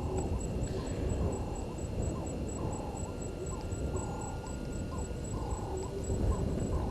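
Short animal calls repeating several times a second over a steady low rumble, with a faint, evenly pulsing high tone running through.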